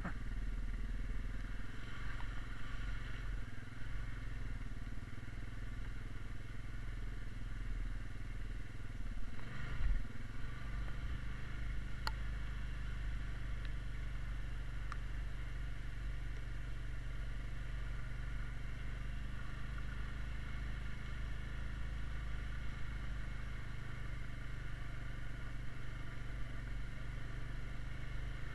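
Honda Rubicon 520 ATV's single-cylinder engine running steadily at low trail speed, with a short louder moment about ten seconds in and a single sharp tick a couple of seconds later.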